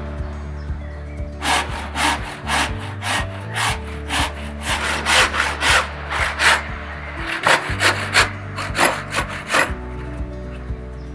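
Hand saw cutting a kitchen cabinet end panel along its scribed line, with quick back-and-forth strokes at about three a second. There is a short pause about seven seconds in, and the sawing stops shortly before the end.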